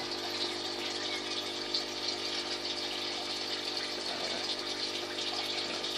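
Steady electric hum with a constant wash of running water, from the hydroponic system's pump circulating nutrient water through the pipes.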